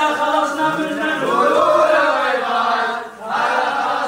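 A group of men chanting together in unison, with a short break about three seconds in.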